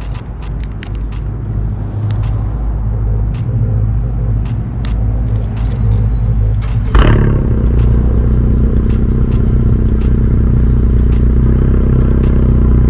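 Honda Civic hatchback's engine running with a steady low rumble that slowly grows louder. About seven seconds in there is a sudden louder burst, after which the engine runs louder and steadier. Scattered light clicks are heard over it.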